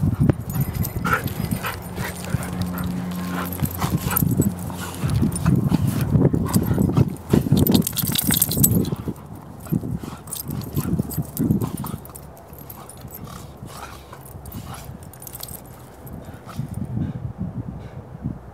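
Dogs, standard poodles, running and play-fighting on a grassy path: rustling through the grass, paw thuds and dog sounds, busiest for the first twelve seconds and quieter after.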